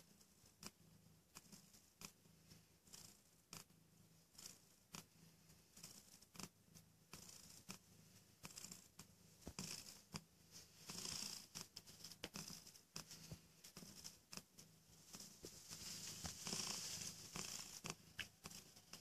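Mother cat and her nursing newborn kittens making faint, irregular clicks and rustles, with soft rasping stretches about ten seconds in and again near the end.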